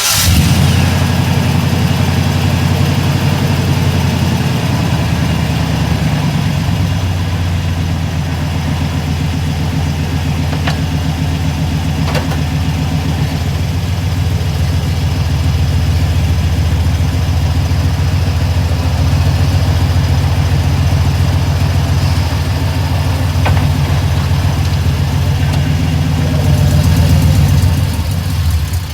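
1996 GMC K2500 pickup's engine running steadily at idle, with a sound its owner considers bad, the sign of some fault.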